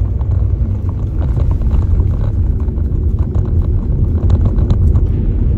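Steady low rumble of a car's engine and tyres heard from inside the cabin while driving, with faint light ticks over it.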